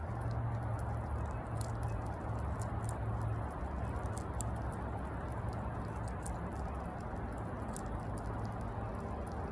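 A pet squirrel chewing and gnawing its food, making irregular small crunchy clicks. A steady low hum runs underneath.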